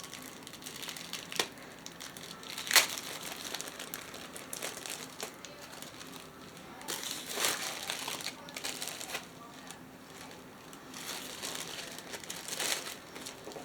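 Packaging crinkling and rustling as it is handled and opened, with a few sharper crackles, the loudest about three seconds in.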